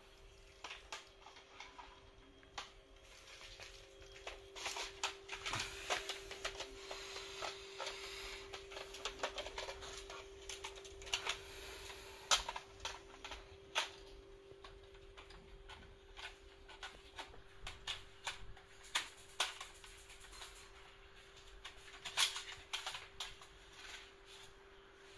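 Irregular plastic clicks, knocks and rattles of a toy gun being handled and its parts fitted together, busiest in the first half, over a steady faint hum.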